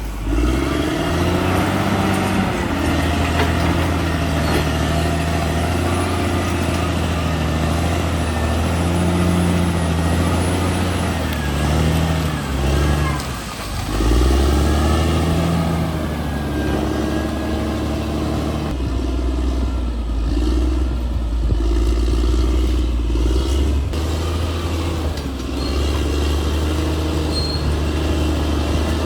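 Crawler bulldozer's diesel engine working under load, its pitch rising and falling as it revs, dipping about halfway through and then picking up again.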